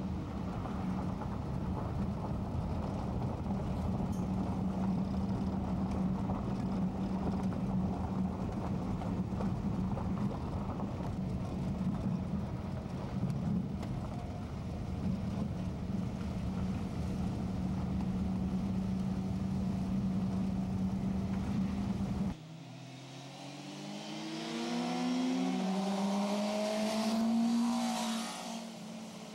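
Steady drone of a car's engine and road noise heard from inside the cabin while driving. After a sudden cut about three-quarters of the way through, a sport motorcycle's engine note rises in pitch as it accelerates toward and past, loudest near the end.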